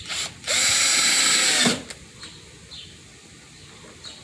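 A Hyper Tough power drill driving a wood screw in one run of just over a second, starting about half a second in. The motor whines up to speed and winds down as the trigger is released.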